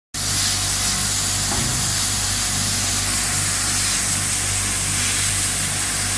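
Crate-washing machine running: water jets spraying steadily inside its stainless steel tunnel, a constant hiss over a steady low machine hum.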